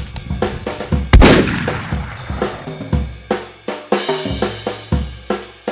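Backing music with a steady drum-kit beat and a loud cymbal-like crash about a second in.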